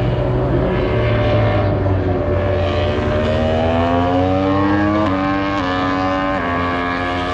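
Racing motorcycle engine accelerating, its pitch rising steadily, then changing gear a few times with abrupt steps in pitch in the second half, over a steady low engine drone.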